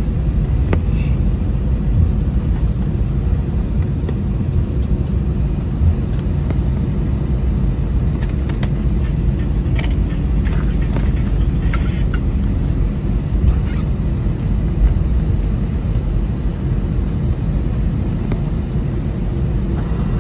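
Cabin noise aboard an Airbus A320 rolling along a wet runway and turning off onto a taxiway after landing: a steady low rumble from the wheels and engines, with a few light clicks and knocks about halfway through.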